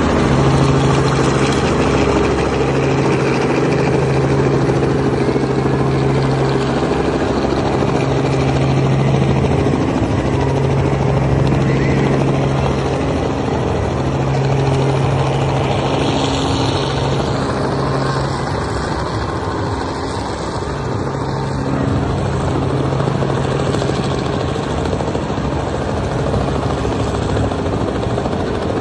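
Helicopter flying in low and close, coming down to land, its rotor and engine making a loud, steady drone.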